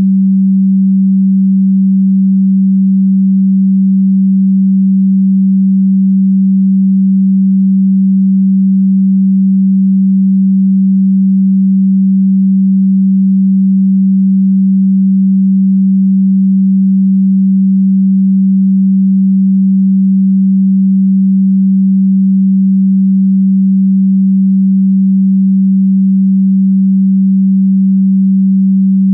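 A single steady, low pure tone: an electronically generated sine wave held without any change in pitch or loudness.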